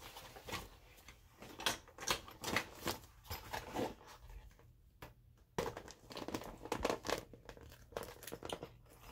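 Rustling and crinkling of small toy accessories being stuffed into a toy backpack's pocket, in short irregular scratches and rubs.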